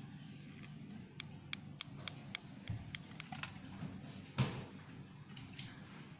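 A run of light, evenly spaced clicks, about three a second, then a single louder knock about four seconds in, over a low steady hum.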